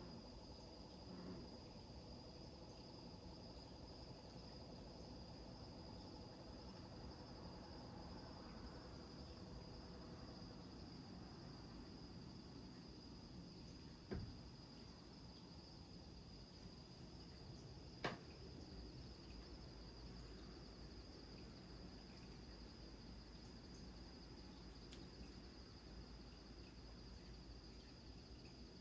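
Faint, steady high chirring of crickets, with a second steady insect tone lower down and a low rumble beneath. Two short sharp clicks stand out, about halfway through and again some four seconds later.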